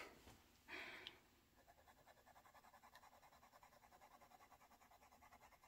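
Faint scratching of a Kaweco Sport fountain pen's fine nib on Rhodia grid paper, in quick, even back-and-forth hatching strokes that start about a second and a half in. This fine nib writes a little scratchier than the medium.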